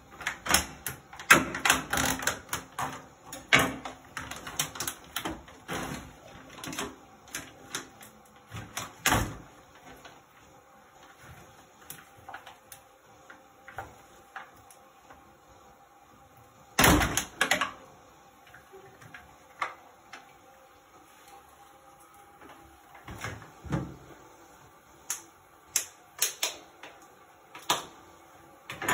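Kitchen counter handling sounds: a knife and a plastic food tray worked by latex-gloved hands, giving irregular clicks, taps and crackles. A dense run of them for the first several seconds, a loud burst about halfway through, then scattered knocks.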